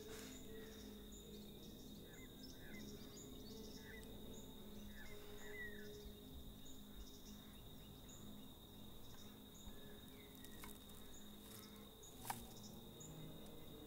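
Faint bush ambience: a steady high insect drone with short high chirps repeating under a second apart, a few bird chirps in the first half, and a low steady hum underneath. A single sharp click sounds about twelve seconds in.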